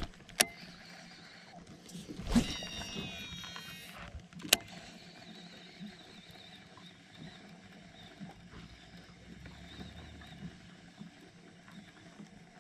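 A fishing cast: a click, then about two seconds in a short whirring whine that falls in pitch as the reel spool runs down, then another sharp click.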